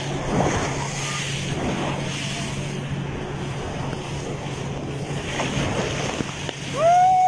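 Wind and water spray rushing past a banana boat towed at speed, over a steady low drone from the tow boat's engine. Near the end a rider lets out a loud shout that rises and falls in pitch.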